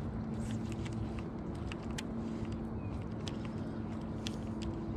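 Electric bow-mounted trolling motor humming steadily, dropping out briefly once or twice as it is switched on and off, over a low rumble with scattered light clicks.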